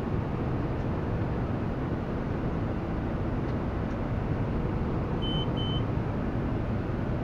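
Tractor engine and John Deere round baler running steadily under load, heard from inside the tractor cab. About five seconds in come two short, high-pitched beeps from an alert in the cab.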